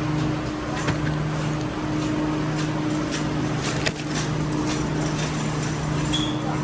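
Steady droning hum and rushing air of refrigeration fans in a chilled produce room, with scattered light clicks and rattles from a wire shopping cart and plastic produce packaging.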